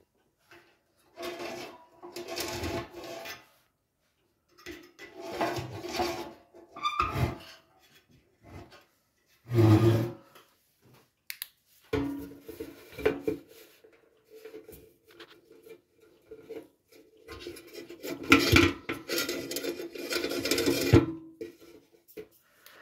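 Metal parts of a small old kerosene heater being handled, in repeated bouts of scraping and rubbing, with a heavy clunk about ten seconds in.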